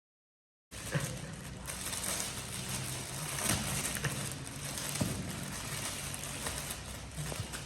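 Crackling and rustling of packaging being handled and opened, with scattered sharp clicks and knocks. It starts abruptly about a second in.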